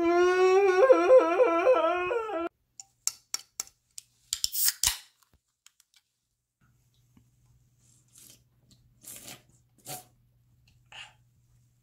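A young man's loud, high, wavering wail, mock crying, which cuts off abruptly after about two and a half seconds. A few small clicks follow, then a short hiss of a soda can being cracked open about four and a half seconds in.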